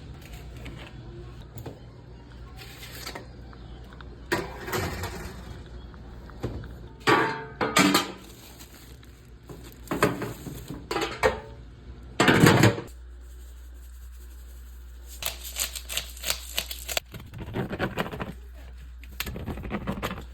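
Irregular knocks, clatter and rustling, like items being handled and set down, over a steady low hum that stops about two-thirds of the way through.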